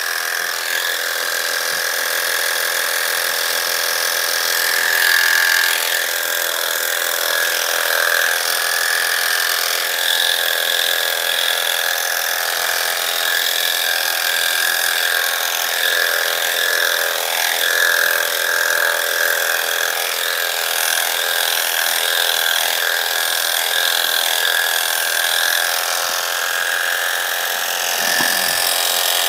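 Electric dog grooming clippers running steadily with an even high-pitched whine, shaving a standard poodle's coat.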